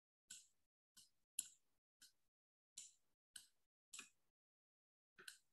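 Computer mouse clicking: about eight short, sharp clicks at uneven spacing, roughly one every half second to a second.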